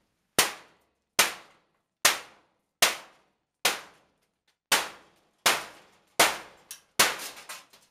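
Hammer blows on an old furnace being broken apart, struck about once every 0.8 seconds, each hit sharp and quickly fading. Near the end the strikes come several in quick succession.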